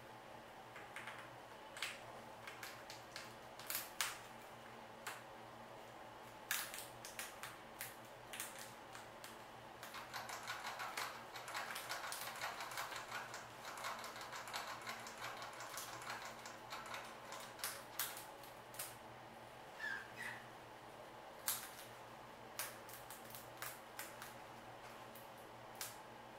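Rat in a cage of paper bedding making scattered small clicks and rustles, busier for a few seconds in the middle, with a brief faint squeak about twenty seconds in.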